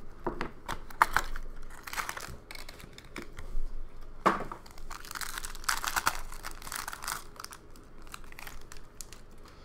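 Plastic shrink wrap being slit and torn off a trading-card box, then the foil pack being pulled open: crinkling, tearing and rustling with sharp clicks. The crinkling is busiest from about four to seven seconds in.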